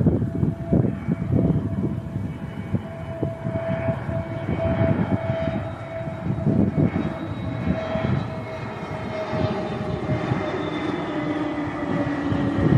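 Airbus A320neo-family airliner on approach with its gear down, its jet engines making a steady whine that slowly falls in pitch as it passes, over a gusty low rumble.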